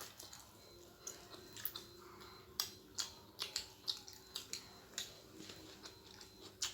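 Close mouth sounds of eating Samyang spicy instant noodles: irregular wet clicks and smacks of chewing, a few a second.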